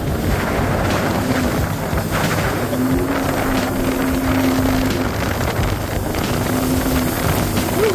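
Sea-Doo personal watercraft running at speed on open water: a steady engine drone whose pitch wavers a little, under heavy wind buffeting on the microphone and rushing water.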